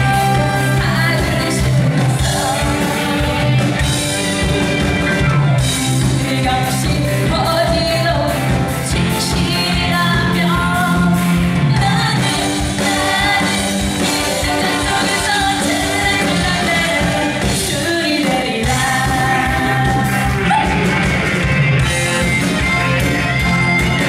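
A woman singing a trot song live into a microphone, backed by a live band with drum kit, violins and saxophone keeping a steady beat.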